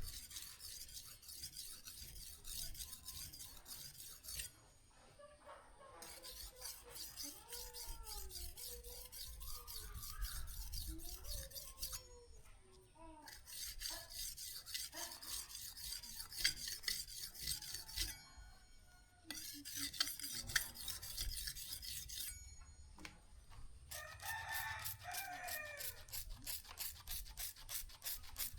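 Steel knife blade worked by hand on an abrasive, rapid back-and-forth scraping strokes in runs of several seconds with short pauses between. Chickens call in the background, with a rooster crowing near the end.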